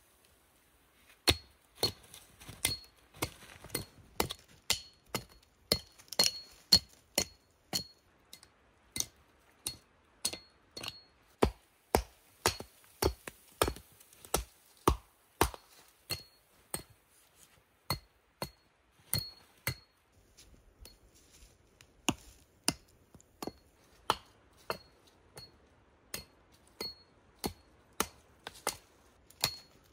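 A machete chopping into small conifer trunks and branches: a steady run of sharp chops, about one or two a second, each with a brief metallic ring from the blade, starting about a second in.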